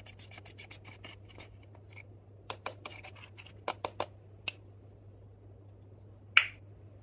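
Pressed eyeshadow being scraped out of a clear plastic compact with a metal tool: quick gritty scratching of crumbling powder, then a run of sharper, louder scrapes and clicks of metal on the plastic pan about halfway through. One loud sharp click near the end.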